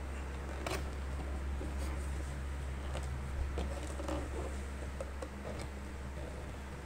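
A cardboard box being opened by hand: a tuck flap pulled out and the lid lifted, with scattered light taps and scrapes of card. A steady low hum runs underneath.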